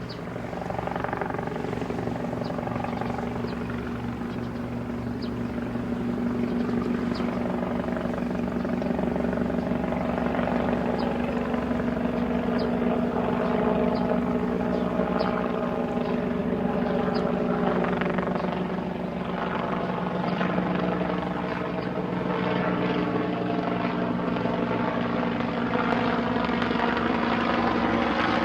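Helicopter running steadily, its rotor blades beating rapidly over the steady hum of the engine.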